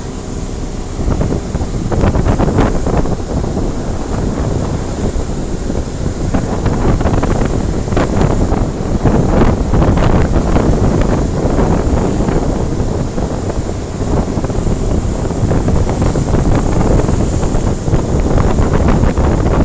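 Wind buffeting the microphone aboard a boat crossing rough sea, with the rush and splashing of water around the hull throughout.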